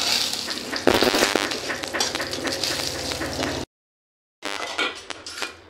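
Crushed badi (sun-dried lentil dumplings) frying in hot oil in a steel kadai, sizzling and crackling, with a metal spatula stirring and scraping the pan. About two-thirds of the way through, the sound cuts out suddenly for under a second, then comes back quieter.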